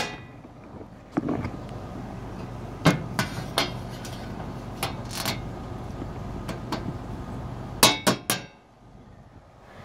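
Scattered metal clicks and knocks as a steel electrical panel cover is closed and its latch tab worked with a pliers multitool. A quick run of sharper clanks comes about eight seconds in.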